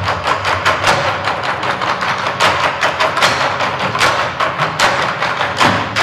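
Wooden drumsticks of a Chinese drum ensemble clicking in a quick, even rhythm, about four sharp clicks a second, with no deep drumhead strokes: a stick-clicking passage between drum sections.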